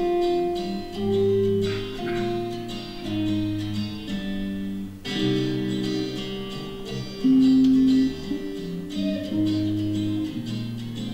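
Guitar music: strummed guitar chords over steady low notes, the chords changing about once a second, with a short break about five seconds in.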